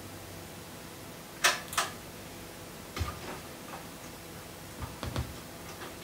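Record player being started as a 78 rpm shellac record begins to spin: two sharp clicks about a second and a half in, then a scatter of softer clicks and light knocks, over a faint steady hiss.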